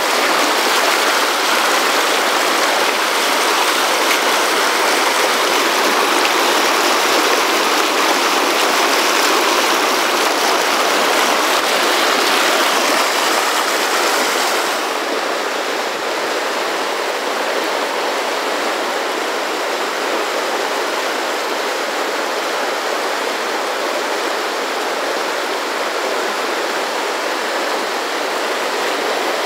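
Fast mountain river rushing and tumbling over boulders in pocket-water rapids, a steady, loud rushing hiss. About halfway through it turns a little quieter and duller.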